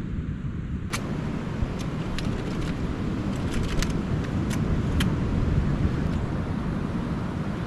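Sharp metallic clicks and clanks, a dozen or so in a few seconds, as a metal ladder is folded up and its rungs and hinges knock together. Under them runs a steady low rush of wind.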